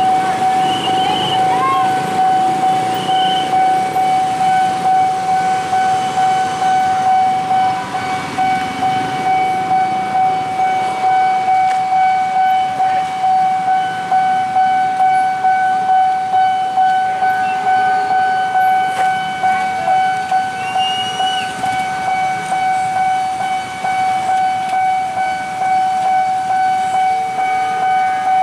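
Railway level-crossing warning bell ringing: a rapid repeating ding on one steady pitch that keeps going while the barriers are down.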